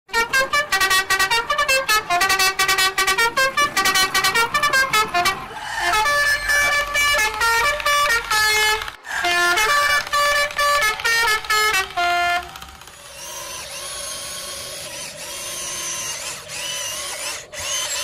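A bouncy melody of short, staccato horn-like electronic notes. About twelve seconds in it gives way to a quieter, steady hiss with a faint wavering high whine.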